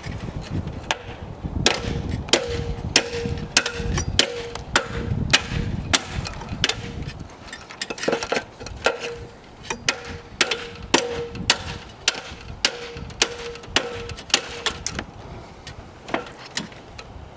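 A hammer striking a metal fitting on a sailboat mast again and again, one to two blows a second, each with a short metallic ring, as a pin is knocked loose without a punch. The blows stop about fifteen seconds in.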